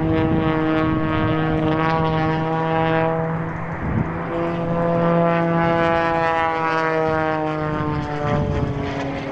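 Propeller airplane engine running loud and steady, its pitch sagging over the last few seconds.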